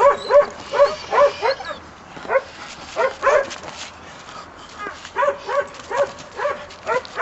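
Puppy barking at a bite-suited helper during bite training, in quick runs of short, high-pitched barks about three a second, with a pause in the middle.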